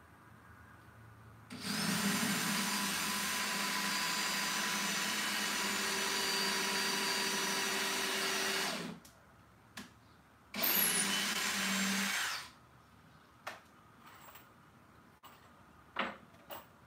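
Handheld power tool motor running steadily for about seven seconds, then a second, shorter run of about two seconds after a brief pause, followed by a few light knocks.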